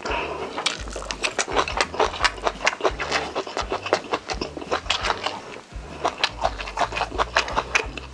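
Close-miked chewing and mouth sounds of someone eating: a rapid, irregular run of wet clicks and smacks.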